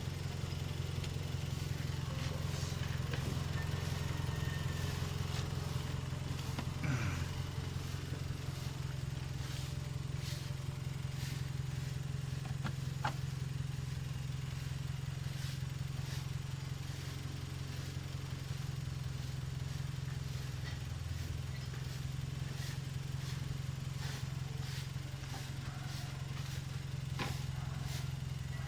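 Car engine idling steadily, the running donor car during a jump-start, with a few light clicks and knocks from handling the jumper cable clamps.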